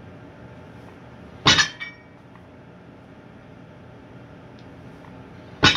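Iron weight plates on a standard barbell clanking twice, about a second and a half in and again near the end, each clank followed by a brief metallic ring and a smaller rattle.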